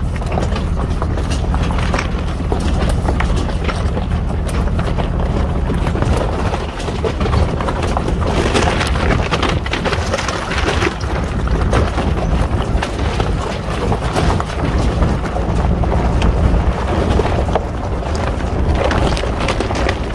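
Ford pickup truck creeping along a rocky dirt trail: the engine runs low and steady while the tyres crunch over loose gravel and knock against rocks in a constant patter of clicks.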